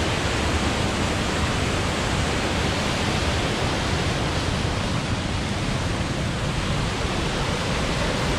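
A waterfall on a rocky river, the water rushing steadily over the rocks.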